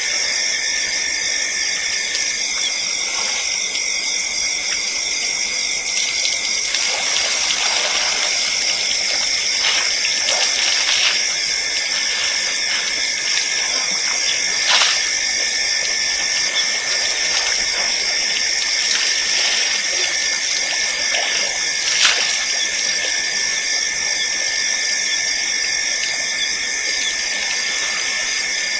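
A steady, shrill night chorus of insects, in several fixed high bands. Over it come a few brief splashes of water as elephants drink at the pond's edge, the clearest about halfway through and again about three-quarters of the way in.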